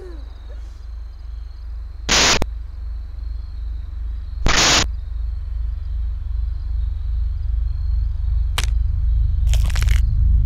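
Horror-film sound design: a low, pulsing rumble that grows louder throughout. Two loud, short noise hits about two and a half seconds apart break into it, followed later by a click and a crackling burst. The rumble cuts off abruptly at the end.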